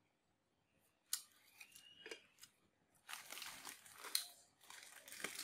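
Clear plastic bag crinkling as it is handled: a few sharp clicks, then dense crinkling from about three seconds in.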